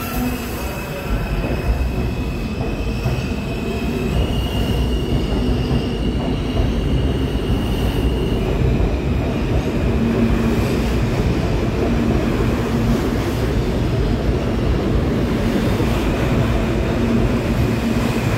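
New York City subway M train of stainless-steel cars pulling out along the platform and gathering speed: a steady rumble of wheels on rails that grows slowly louder. A high thin whine rides on top, stepping up in pitch about four seconds in and dropping back about four seconds later.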